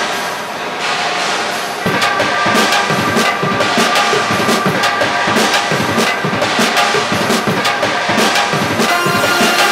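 Background music with drums and a steady beat, getting louder about two seconds in.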